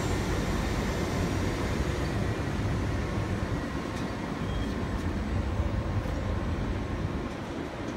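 A Trenitalia E.464 electric locomotive and its passenger coaches roll slowly past, with a steady low rumble of wheels on rail. A faint thin whine fades out in the first couple of seconds as the locomotive goes by, and there is a single light click about halfway through.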